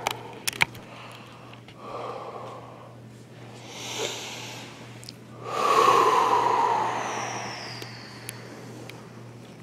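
A person breathing out hard under the strain of a deep assisted stretch: a few short breaths, then one long, loud exhale about six seconds in that trails off. A couple of sharp clicks near the start.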